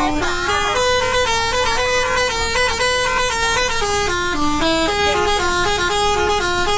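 Indonesian bus "telolet" horn, a multi-tone musical horn, playing a tune of short held notes that step up and down in pitch without a pause.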